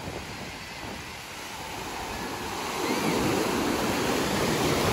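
Sea waves breaking and surf washing in over the shallows, the rush of water growing louder about halfway through as a wave surges in.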